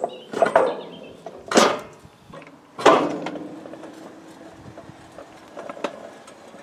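Home-made double-bogie rail wagon with flanged wheels being pushed by hand along a narrow-gauge field railway, giving a run of metallic clanks and knocks. The two loudest come about one and a half and three seconds in, and the second leaves a ringing tone that slowly fades.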